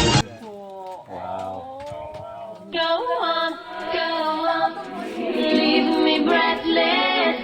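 Background music: a pop song drops its beat and bass, leaving a sung vocal line with layered voices. The full track with its beat comes back right at the end.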